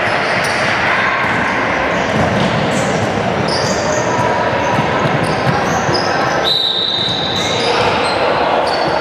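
Din of a basketball game in a large, echoing sports hall: a ball bouncing, short high sneaker squeaks on the hardwood court and players' voices. About six and a half seconds in, a referee's whistle sounds one steady blast of about a second.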